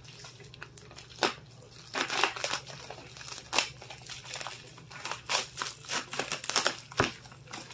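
Plastic bubble mailer crinkling and rustling in irregular bursts as it is slit open with a blade and pulled apart by hand, with a single sharp knock near the end.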